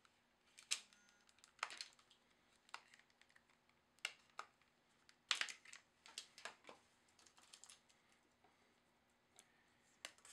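Light, scattered plastic clicks and snaps of a Samsung Galaxy S4's snap-on back cover being pried off and the phone handled.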